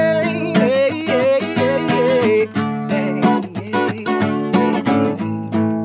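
Acoustic guitar strummed in a steady country rhythm, with a voice holding and bending a sung note over the first couple of seconds.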